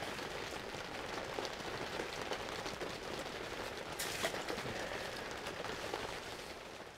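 Rain pattering on the fabric roof of an ice-fishing hut: a steady hiss of drops with scattered light taps, briefly louder about four seconds in.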